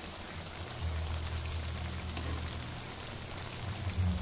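Onion-tomato masala frying in oil in a kadai: a steady sizzle with a fine scatter of small pops, over a low steady hum.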